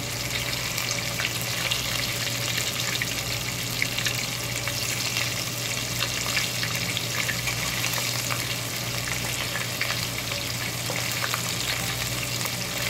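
Battered shrimp deep-frying in hot oil: a steady crackling sizzle, with metal tongs turning the shrimp in the pot.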